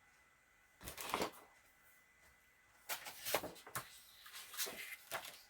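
Short scratchy rustles and light taps of paper and card being handled, in a few brief clusters.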